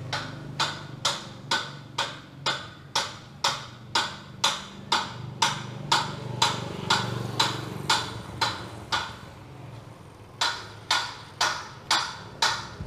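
Sharp, evenly spaced knocks, about two a second, over a low steady hum; the knocks stop for about a second near the end, then start again.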